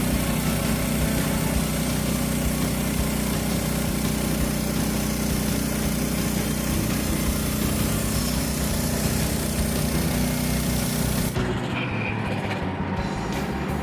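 Portable band sawmill's gasoline engine running steadily at constant speed as the band blade cuts through a walnut log. Near the end the sound changes abruptly, the hiss dropping away.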